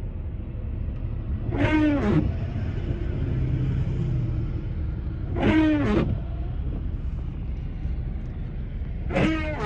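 Van windshield wiper blades squeaking across the glass, three sweeps about four seconds apart, over the steady rumble of the van driving. The squeal is from wiper blades the driver calls loud and is about to replace.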